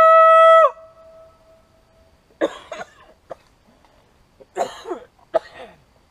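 A loud, steady blown note with a rich tone, made with the hands cupped at the mouth, held and then cut off sharply under a second in. Later come a few rough coughs, at about two and a half seconds and again around five seconds.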